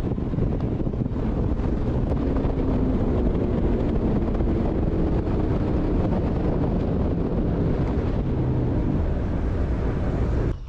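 Bass boat running across open water on its 250-horsepower outboard: a steady engine drone under wind buffeting the microphone.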